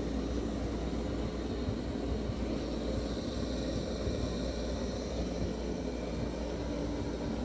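Roborock Q Revo robot vacuum running over carpet, a steady motor hum with a faint whine.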